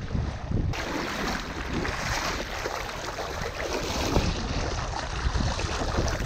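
Wind rumbling on the microphone, then about a second in a sudden switch to water rushing and splashing against a sailboat's hull at the waterline as the boat moves through the water.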